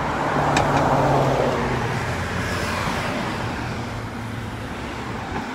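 Road traffic: cars driving past on a busy street, the tyre and engine noise of one car swelling about a second in and then slowly fading away under a steady low engine hum.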